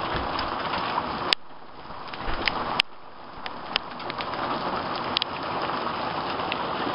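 Quarter-sized hail and heavy rain coming down as a steady hiss, with scattered sharp ticks of hailstones striking. About a second and a half in, the hiss drops away for roughly two seconds between two sharp clicks.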